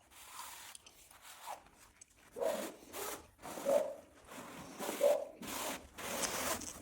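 Steel headliner bows being slid through the sewn fabric sleeves of a replacement car headliner: repeated rubbing swishes of rod against cloth.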